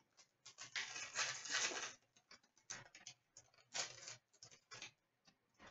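Hockey trading cards being handled: a run of quick papery swishes and ticks as cards slide against one another and are set down, densest in the first two seconds, then scattered.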